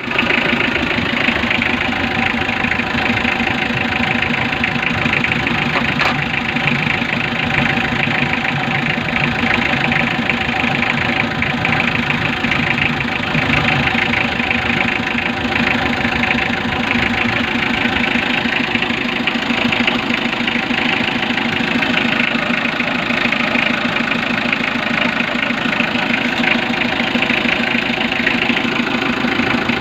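Mitsubishi L300 diesel engine idling steadily, run for an engine check.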